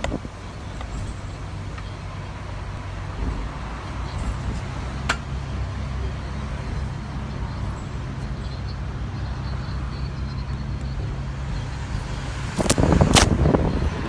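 Steady engine hum and road rumble of a moving bus, heard from its upper deck. Near the end, wind buffets the microphone loudly.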